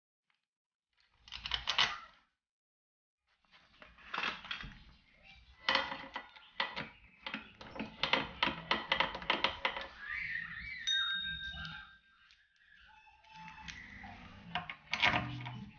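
Rapid metallic clicking and clinking of hand tools working on a Predator 212 engine's aluminium side cover as it is bolted back on, with a few ringing metal tings near the middle.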